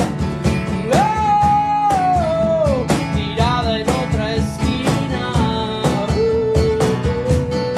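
A small acoustic band plays: strummed acoustic guitars and an acoustic bass over a steady percussion beat. A melody line of long held notes bends and glides over the top.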